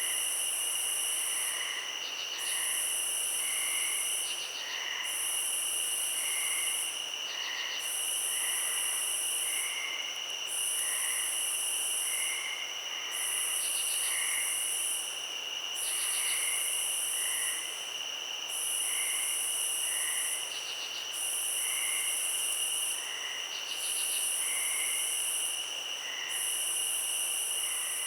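Night insect chorus: a high buzzing that sounds in regular phrases of about a second and a half, pausing briefly about every two seconds, over two steady unbroken cricket-like trills, with short chirps repeating lower down about once a second.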